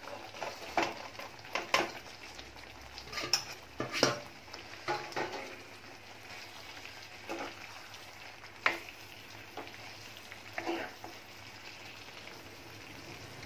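Stuffed spiny gourds tipped from a steel plate into a wok of simmering gravy and stirred in with a spatula. Scrapes and sharp knocks of the spatula and plate against the pan come over a low sizzle, thick in the first few seconds and sparser later.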